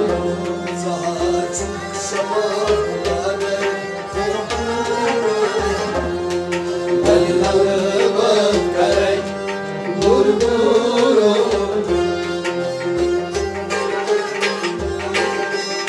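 Kashmiri Sufi devotional music: a harmonium holds steady chords under a male voice singing, with regular hand-drum strokes and plucked strings.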